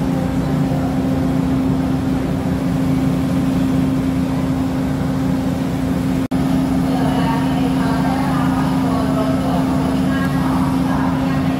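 Steady low diesel hum of a passenger train standing at the platform. People's voices chatter faintly behind it from about halfway through, and the sound breaks off for an instant near the middle.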